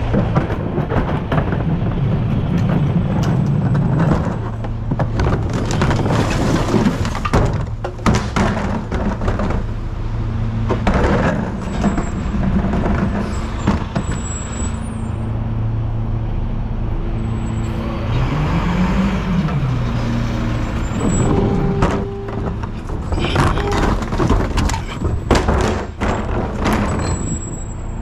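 Recycling truck's engine running steadily, with several spells of loud clattering and banging. The engine revs up and back down once about two-thirds of the way in.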